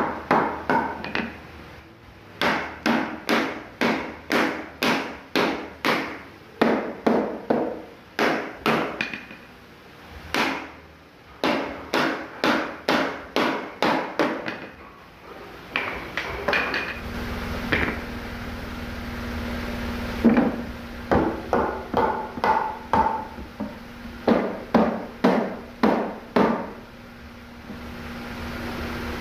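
Wooden mallet striking wood, knocking the joints of a wooden bed frame together: runs of sharp knocks about two a second, with short pauses between runs. A steady low hum comes in about halfway through.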